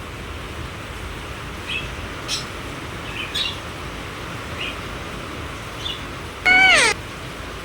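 Pet parrots calling: a few short, faint chirps, then one loud squawk about six and a half seconds in, lasting about half a second with its pitch bending downward at the end.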